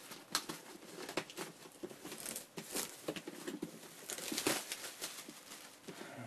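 Clear plastic shrink-wrap crinkling and crackling as it is handled and pulled off a graphics card's cardboard retail box by hand, in irregular crackles that are busiest around the middle and about two-thirds of the way through.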